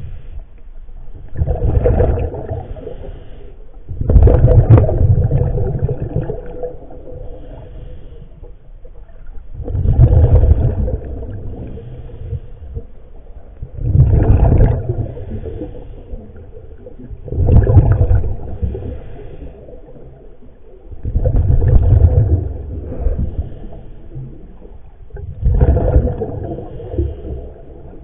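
Scuba diver breathing underwater: exhaled air bubbles out of the regulator in seven regular bubbling bursts, about one every four seconds, with quieter inhalations between.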